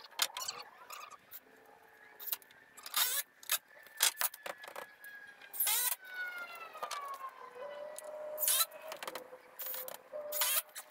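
Wooden framing lumber knocking and clattering as boards of a playhouse frame are handled and set in place. Midway a drawn-out squeal falls slowly in pitch, then holds at a steady lower note until near the end.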